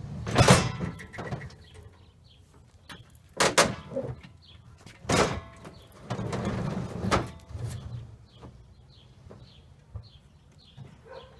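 Metal clunks and scraping as a folded Bosch TS2000 table saw stand, with the saw mounted, is lifted and slid into a pickup truck bed: three loud knocks a few seconds apart, then a longer scrape of about a second and a half as it is pushed over the tailgate. Faint short bird chirps repeat in the background.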